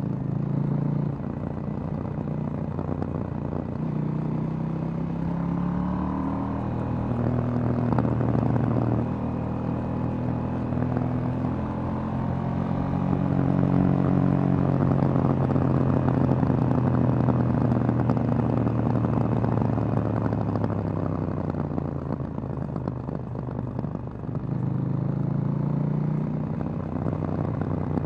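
2018 KTM 790 Duke's parallel-twin engine under way through its stock exhaust, the revs climbing and easing off several times with the throttle and gear changes. The revs are held at their highest for several seconds midway, dip a little before the end, then climb again.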